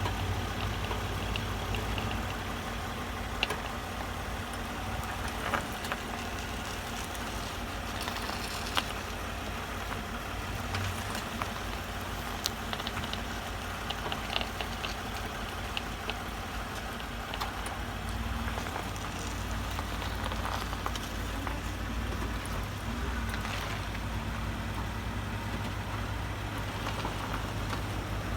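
Toyota Highlander suspension giving irregular sharp clicks and crunches over a steady low engine hum. The noise persists even with new genuine struts and strut mount bearings, and its cause is still unknown.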